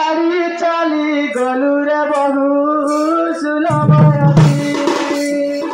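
A man singing a Danda Nacha folk song in long, held notes into a microphone. Drum strokes join about two-thirds of the way through.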